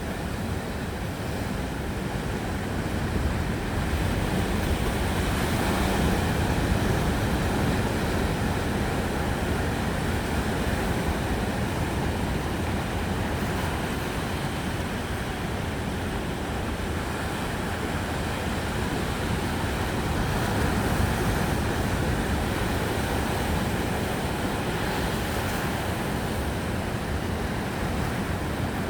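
Steady rush of ocean surf breaking on the beach, swelling about six seconds in and again around twenty-one seconds, mixed with wind on the microphone.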